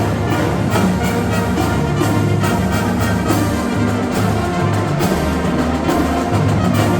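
Marching band playing: brass instruments carrying the melody over drums keeping a steady beat.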